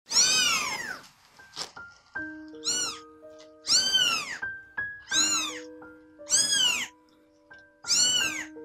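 Three-week-old kittens meowing loudly, six high calls each rising and falling in pitch, from orphaned kittens that are very hungry. Soft background music with held notes plays underneath from about two seconds in.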